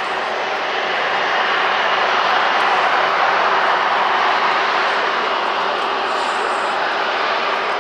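Airbus A350-941 airliner's Rolls-Royce Trent XWB jet engines rushing steadily as it rolls out on the runway after touchdown. The noise swells a few seconds in, then eases a little.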